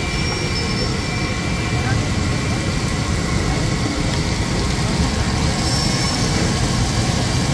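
Whole fish deep-frying in a large karahi of hot oil, sizzling, over a steady low rumble and background voices.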